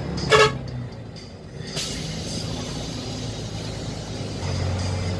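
Bus engine running steadily, heard from inside the bus. A short, loud horn honk comes about half a second in, and a brief hiss follows near two seconds in.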